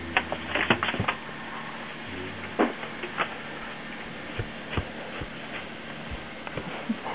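A toddler handling paper booklets and papers pulled from a shelf: scattered light taps and paper rustles, a quick cluster in the first second, then a few more spread out.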